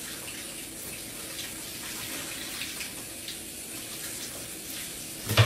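Steady rushing hiss of running water.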